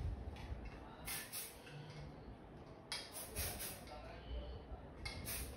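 Soft rustling swishes, several in a row, as long hair is handled and wound around a flat iron, over a low steady room rumble.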